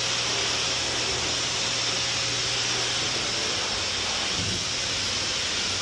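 Electric air blower running steadily: a loud, even rushing hiss with a low motor hum underneath. It starts abruptly at a cut just before.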